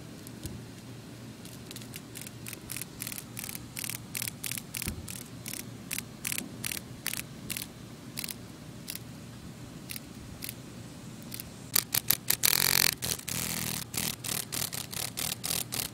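Dog-day cicada (Neotibicen canicularis) held in the fingers, giving short rasping buzzes about two a second, the distress call of a handled male. About twelve seconds in it gives one longer, louder buzz, then quicker bursts near the end.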